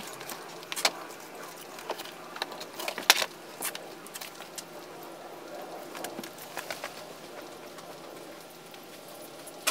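Scattered clicks and knocks of fishing gear being set down in a car's boot, mostly in the first few seconds, the loudest about three seconds in. Birds call faintly in the background.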